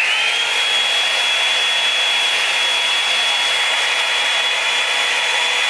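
Drybar Double Shot blow dryer brush switched on and running: a steady rush of blown air with a high motor whine that rises quickly as it starts, then holds steady.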